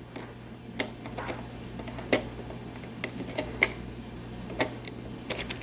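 Scattered light clicks and taps, about ten at uneven intervals, from hands working a desktop motherboard's CPU socket load plate and retention lever, over a steady low hum.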